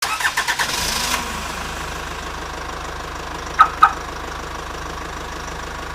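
An engine idling with a steady, even low pulse, with a few clicks in the first second and two short sharp sounds about three and a half seconds in.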